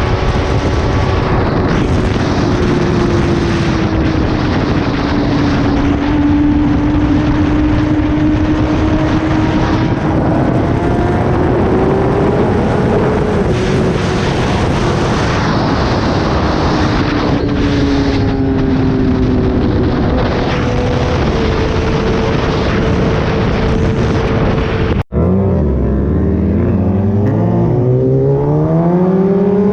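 Kawasaki ZX-10R inline-four with an SC-Project exhaust running on the move, its note rising and falling gently over rushing air noise. Near the end, after a split-second break, the revs climb steeply as the bike accelerates hard.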